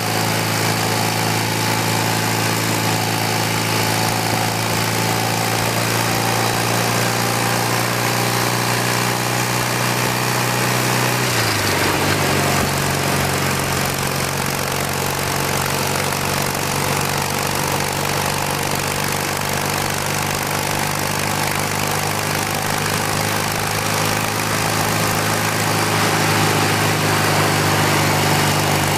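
1981 BMW R65's air-cooled flat-twin engine running under way at steady speed, with wind and road noise. About eleven seconds in, the engine note drops abruptly and then holds steady at the lower pitch.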